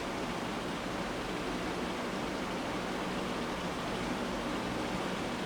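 Steady, even hiss of background noise with nothing else standing out: room tone or the recording's noise floor.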